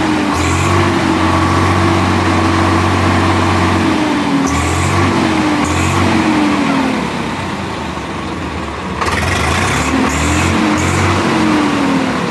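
Swaraj 855 FE tractor's three-cylinder diesel engine being revved. It is held at high revs for a few seconds, then blipped twice, drops back toward idle, and is revved up again near the end.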